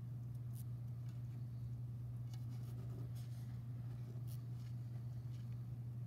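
Faint rustling and light scratching of nylon cord being handled and pulled while tying a sliding knot for an adjustable bracelet clasp, a few brief rustles over a steady low hum.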